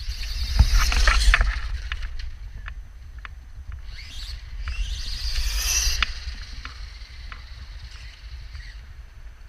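Toy-grade RC monster truck with a brushless motor running past twice, swelling and fading about a second in and again around five seconds in, its tyres crackling over rough ground, with a steady low wind rumble on the microphone.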